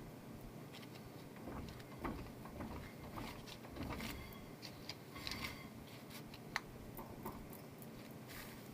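Faint, irregular knocking and clicking from a mechanism, the knock the owner is chasing, which is still there after a fix but smaller. One sharper click stands out about two-thirds of the way through.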